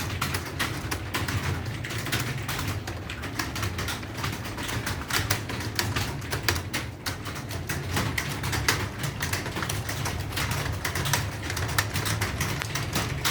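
Fast typing on an Acer computer keyboard: a rapid, unbroken patter of key clicks over a steady low hum.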